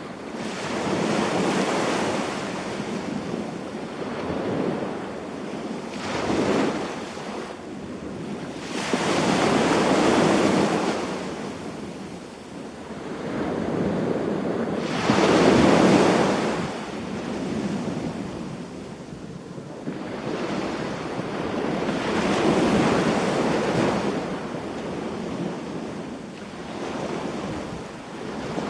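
Small waves breaking and washing up on a sandy beach, the surf swelling and falling back every few seconds, with the loudest wash about halfway through.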